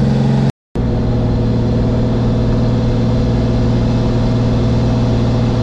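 BMW S50 straight-six of a fully built E36 drift car running steadily at cruise, heard inside its stripped, roll-caged cabin. The sound cuts out for a moment about half a second in, then the same steady engine note resumes.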